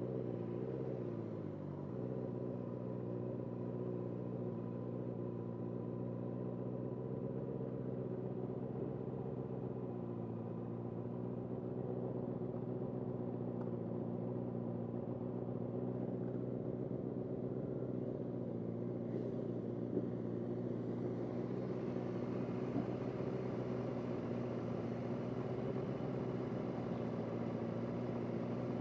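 Motorcycle engine idling steadily, its pitch wavering slightly for the first couple of seconds and then holding even.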